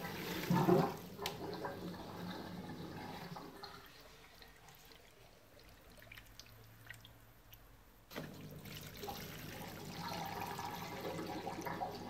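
Neff dishwasher drain pump running after a reset, with water gurgling as it pumps out; the pump sounds normal, ruling it out as the reason the wash cycle won't start. The running stops about 4 s in and starts again abruptly about 8 s in, after a bump about half a second in.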